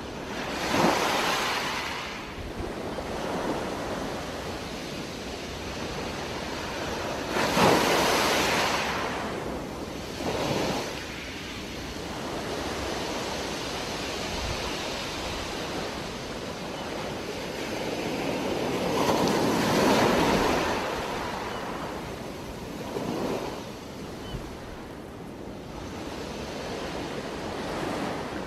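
Underwater sound picked up by a diving camera: a steady watery rush with about six louder surges lasting a second or two each, the loudest about eight seconds in. The surges are typical of a scuba diver's exhaled bubbles.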